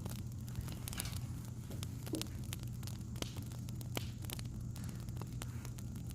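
Wood fire crackling, with irregular sharp pops and snaps over a steady low hum.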